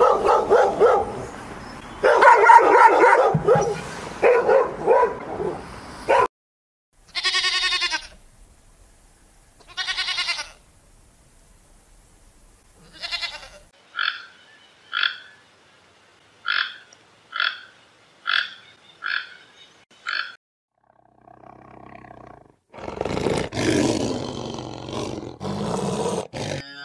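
A run of different animal calls, one after another with short silences between. First a long stretch of pitched calls, then two separate calls, then about eight short calls repeated roughly once a second, a low call, and a loud final stretch.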